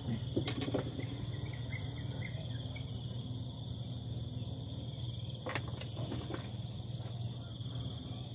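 Steady chorus of insects, with a low steady hum underneath and a few faint knocks about half a second in and again a little after five seconds.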